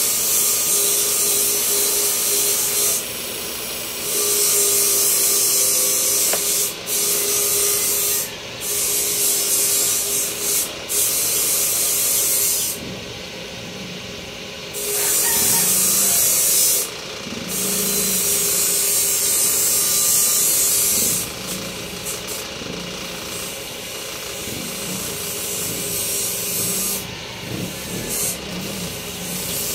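Electric grinder running with a steady hum, with a harsh hiss each time work is held against it, in passes of one to four seconds with short breaks; the grinding is lighter in the last third.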